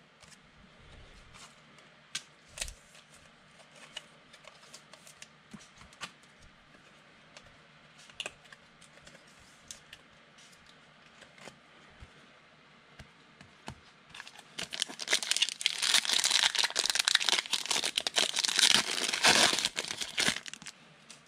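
Foil wrapper of a Panini Contenders football card pack crinkling and tearing open. It is a dense crackle that starts about two-thirds of the way in and lasts several seconds, after faint scattered clicks.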